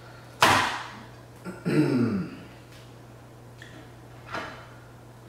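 A person clearing their throat: a sharp, loud burst about half a second in, then a short voiced grunt falling in pitch, and a fainter breathy burst near the end.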